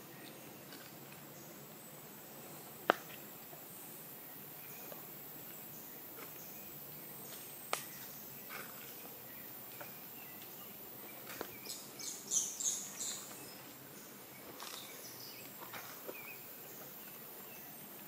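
Rainforest ambience: a steady faint hiss of insects and distant wildlife, broken by a few sharp clicks, with a short burst of high, rapidly repeated animal calls about twelve seconds in.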